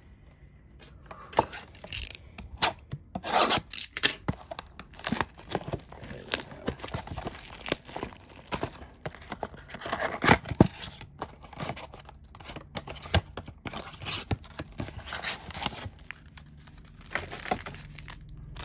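Foil trading-card packs and the cards inside them handled and opened by hand: a busy, irregular run of short crinkles, tears and scrapes of wrapper and card stock rubbing, starting about a second in.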